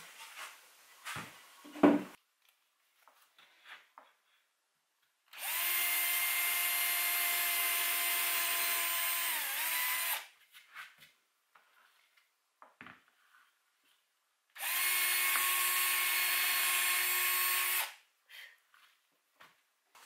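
Cordless drill boring into a pine board in two long, steady runs, about five and then three seconds, its pitch dipping briefly near the end of the first. A few light knocks of the wooden panel being handled come before.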